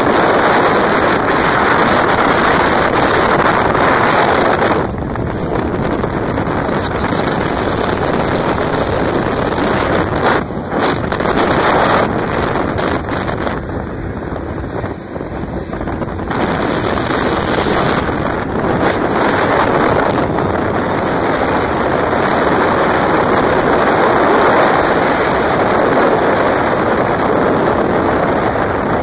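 Outboard motorboat running at speed: a steady rush of wind on the microphone mixed with water rushing past the hull and wake. It eases a little about five seconds in and again around the middle.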